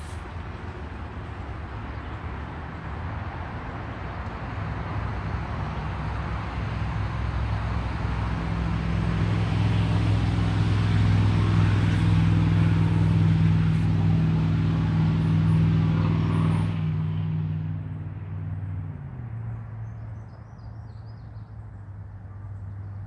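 A car running: a steady engine hum with road noise that builds to a peak. The road noise cuts off about two-thirds of the way through, and the engine hum drops to a lower, quieter tone a couple of seconds later.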